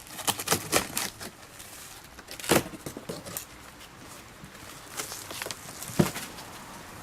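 Handling noises: a quick run of clicks and knocks, a heavier thud about two and a half seconds in, and a sharp knock about six seconds in, with light rustling between.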